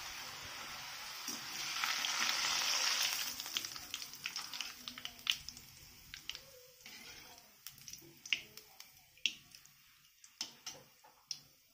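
Banana sev deep-frying in hot oil in a kadhai: a steady sizzle that swells about two seconds in, then dies down as the strands are lifted out. Through the second half come sharp clicks and taps of the slotted spoon and the wire strainer against the kadhai.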